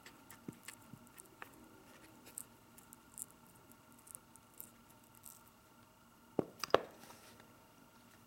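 Stone seal dabbed over and over into a dish of red seal paste: a run of soft taps and small clicks, then two louder knocks about six and a half seconds in.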